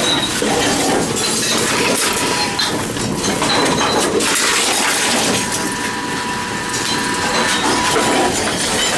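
Envipco CF-1500 reverse vending machines running as containers are fed in: a steady clatter of cans and bottles, many small clinks and knocks, and a faint steady machine tone.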